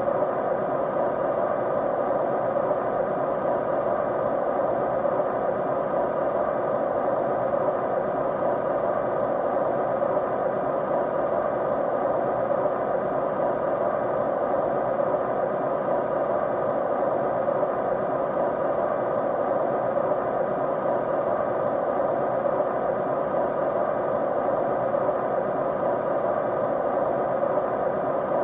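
Steady white noise, even and unchanging, strongest in the middle range with a few faint steady tones running through it.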